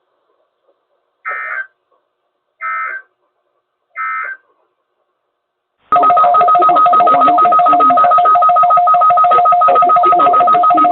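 Emergency Alert System weather-radio signalling: three short digital data bursts (the SAME header) about a second and a half apart. About six seconds in, a loud, steady two-note warning alarm tone starts, the kind used to switch on weather-radio receivers.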